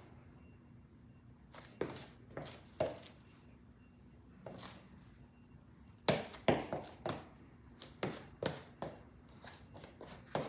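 Basketball sneakers (Nike Kobe 5 Protro) stepping and shifting on a wooden floor: a few scattered soft footfalls, then a quicker run of steps about six seconds in.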